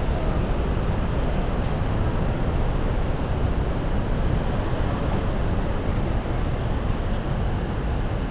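Wind buffeting the microphone: a steady low rumble with a hiss over it and no distinct tones.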